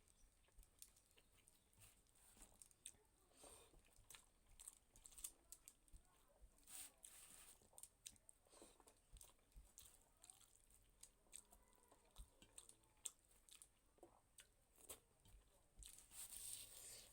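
Faint close-up eating sounds of a person chewing a mouthful of rice and vegetable curry: many small wet mouth clicks and smacks, with a few brief louder rustling bites.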